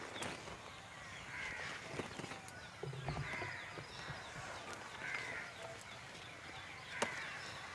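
A crow cawing over and over, one short call about every two seconds, with a single sharp click about seven seconds in.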